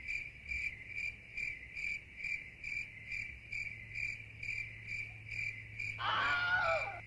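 A cricket chirping steadily, a little over two chirps a second. A brief cry falling in pitch comes about six seconds in.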